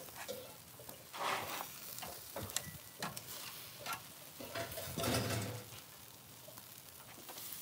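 Marinated meat and chicken sizzling on a smoking barbecue grill, a steady hiss broken by scattered sharp clicks and pops as the pieces are turned with metal tongs.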